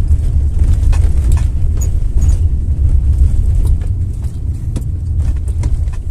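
A vehicle driving slowly over a rough road: a steady low rumble of engine and road noise, with scattered light clicks and rattles.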